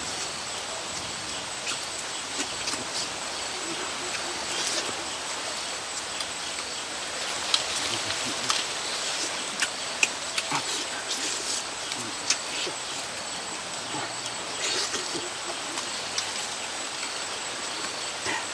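Roast bird being torn apart by hand and eaten: scattered sharp clicks and smacks of tearing and chewing over a steady outdoor hiss.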